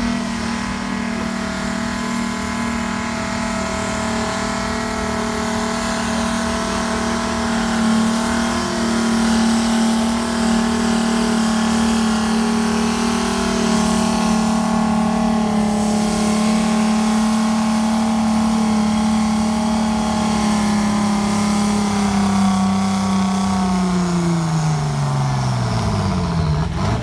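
Tractor engine working flat out under heavy load as it drags a weight-transfer pulling sledge. The note holds steady for most of the pull, then sags and falls steadily near the end as the engine labours and bogs down under the mounting load.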